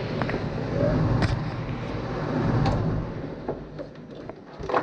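Steady low machine hum that fades away about three seconds in, with a few light clicks and knocks.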